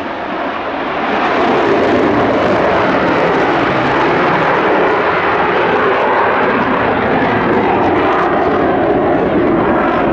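Airplane engine noise from an aircraft in flight: a loud, steady rushing sound. It dips briefly at the start, builds back within about a second and a half, then holds.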